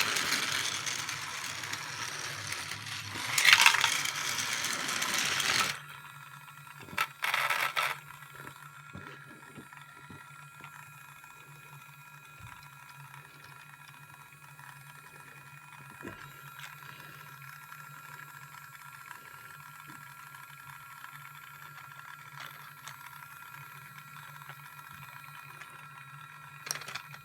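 Plastic toy train set running: loud plastic rattling and clattering for the first six seconds, a short clatter about seven seconds in, then the small motor of a battery-powered toy Thomas engine running with a faint steady hum and light, fairly even clicks along the track.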